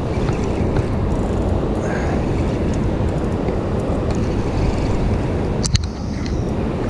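Steady roar of rushing tailwater from a dam's open spillway gates, mixed with wind on the microphone. A few quick sharp clicks come near the end.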